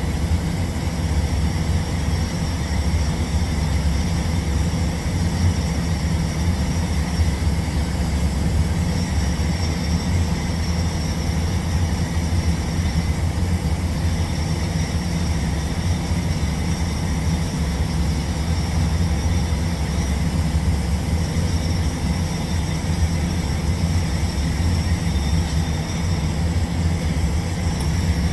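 Steady low hum of TIG welding equipment running during a pipe root pass, with a faint steady high whine over it.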